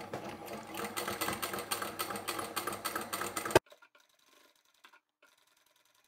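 Pro Sew sewing machine stitching, a rapid even run of needle strokes that stops abruptly about three and a half seconds in. After that there is near silence with a few faint clicks.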